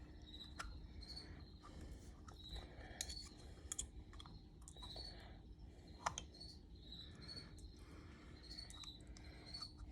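Faint, scattered clicks and light taps from a Girling brake caliper and its piston being handled and worked into the bore, with short high chirps recurring about once a second.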